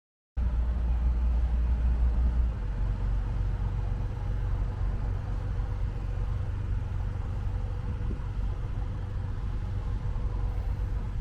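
Dhow's engine running, a steady low rumble with a faint steady hum, starting abruptly half a second in; the rumble shifts slightly about two and a half seconds in.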